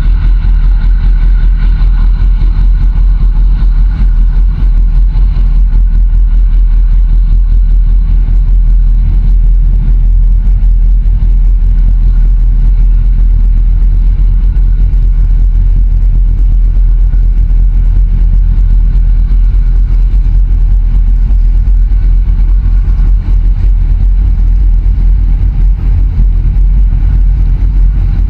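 Steady, loud low rumble of a boat's engine running close by, with a faint higher whine over it in the first few seconds that fades away.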